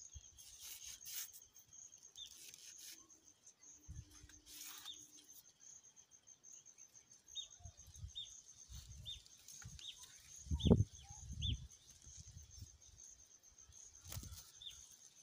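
Birds calling outdoors, a steady pulsing high chirp with a run of short repeated calls through the middle, over rustling and ripping as a sisal leaf is split into strips with a panga. A dull low thump about ten and a half seconds in is the loudest sound.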